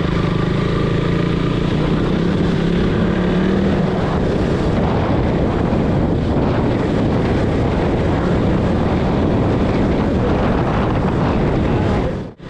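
Motorcycle on the move: the engine runs steadily under a loud, constant rush of wind noise on the microphone. Near the end the sound drops out for a moment.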